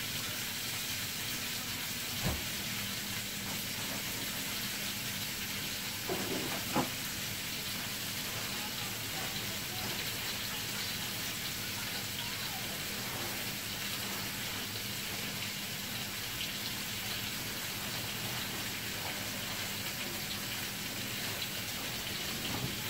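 Food sizzling steadily in a pan on the stove, an even rain-like hiss, with a couple of light knocks about two seconds in and again around six to seven seconds in.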